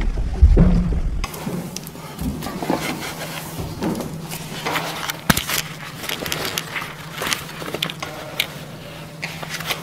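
Scuffs, clicks and knocks of someone clambering over metal next to a train, over a steady low electrical buzz. A loud low rumble at the start cuts off abruptly about a second in.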